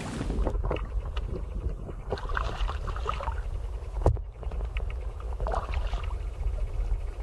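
Water splashing and sloshing as a channel catfish is grabbed by hand in shallow pond water, with one sharp splash about four seconds in. Wind rumbles on the microphone underneath.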